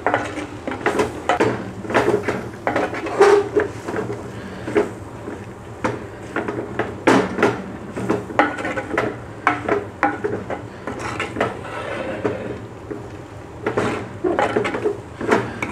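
A spatula scraping and knocking against an earthenware clay pot as a dry mixture of chicken and grated coconut is stirred, in quick irregular scrapes and taps.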